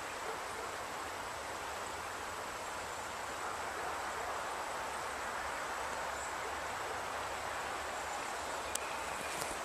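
A river flowing steadily, a continuous even rush of water. A couple of light clicks near the end.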